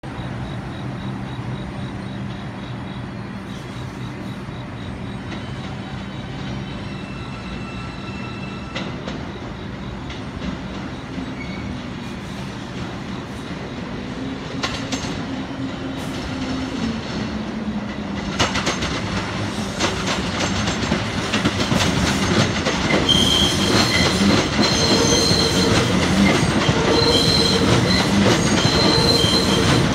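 NYC Subway IRT R142 train pulling into the station, growing louder from about eighteen seconds in. Its wheels clatter over the track joints and squeal high and steadily in the second half.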